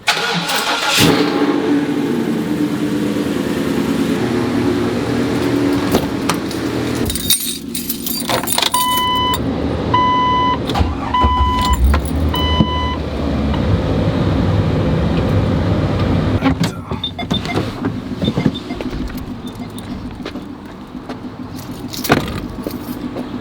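A car engine starts and runs steadily. About nine seconds in, a vehicle warning chime beeps four times in an even rhythm. Scattered clicks and knocks are heard over the engine.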